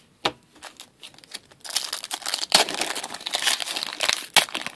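Foil wrapper of a hockey card pack being crinkled and torn by hand as the cards are pulled out. A few light clicks, then a long stretch of dense crinkling from about two seconds in, ending with a sharp snap.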